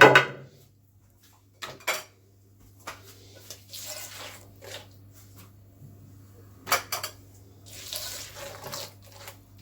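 A utensil clinking against a mixing bowl a few times, with stretches of wet swishing as a runny batter of butter, oil, sugar and eggs is stirred.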